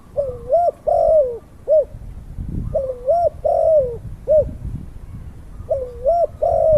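A bird calling in a low, repeated phrase of about four notes, some rising and falling and one held longer, given three times at an even pace about every three seconds.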